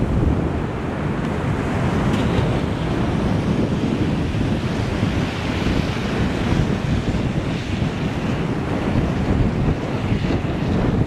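Steady wind buffeting the microphone of a moving vehicle, with road noise underneath.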